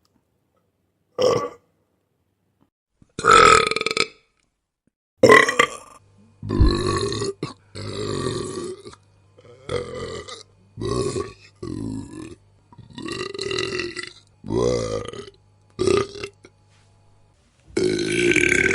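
A string of about a dozen human burps, some short and some drawn out, one after another with silent gaps between them. A long, drawn-out burp begins near the end.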